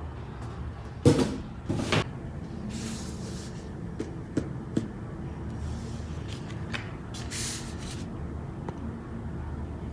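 Packaging handled during an unboxing: a sharp knock about a second in and another soon after, a few small clicks, and short bursts of rustling.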